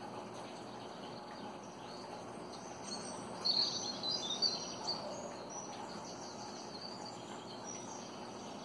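Small birds chirping through a tablet's speaker, with a burst of quick high chirps about halfway through, over a steady hiss.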